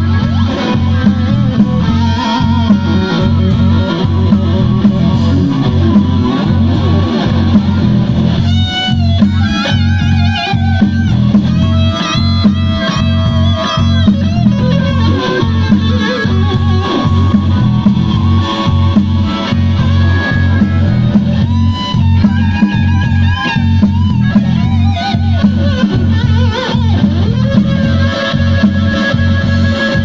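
Live blues-rock band playing an instrumental passage: electric guitar over bass and drums with a steady beat, with bending lead lines in the middle of the passage.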